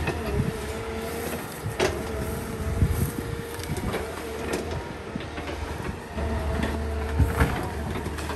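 Caterpillar hydraulic excavator working brush and small trees: a steady engine drone with a high, steady whine over it, broken by several sharp cracks of snapping wood.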